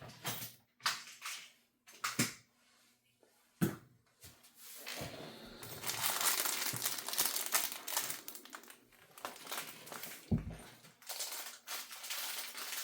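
Packaging being handled: a few knocks as things are set down, then about five seconds in a long stretch of crinkling and rustling, with a low thump near the end.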